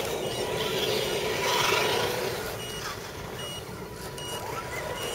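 Electric motors and tyres of RC scale 4x4 crawlers working over a dirt trail, a steady mechanical noise that swells briefly about a second and a half in. A short high beep recurs about once a second through it.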